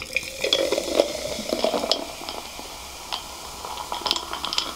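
Coca-Cola poured from a plastic bottle over ice into a glass jar mug, gurgling as it fills, loudest over the first two seconds. Throughout, the cola fizzes and the ice crackles as a foam head rises.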